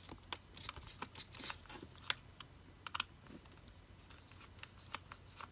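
Faint, scattered light clicks and scratches of a small hand screwdriver turning a tiny screw out of the Anki Cozmo robot's plastic base, with the plastic casing knocked and handled between turns.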